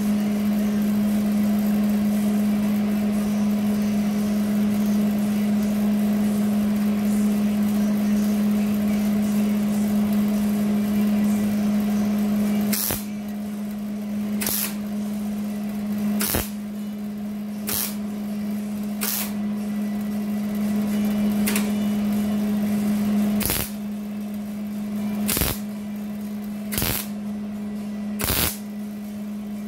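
MIG (wire-feed) welder welding a sheet-steel patch into a Jeep rocker panel: a continuous crackling bead for about the first 13 seconds, then about ten short tack welds, one every second and a half or so. A steady low hum runs underneath.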